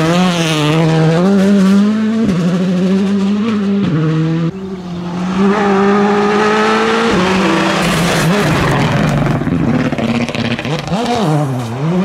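Turbocharged four-cylinder R5 rally car engines (Skoda Fabia, then Hyundai i20) running hard on a gravel stage. Sharp gear changes twice drop the pitch in the first few seconds, then the engine holds high revs and shifts again. Near the end the revs swing up and down as the driver lifts and blips the throttle through a corner.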